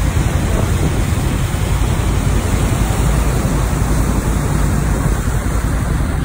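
Steady wind buffeting the microphone on the open deck of a moving river boat, with water rushing past the hull and wake.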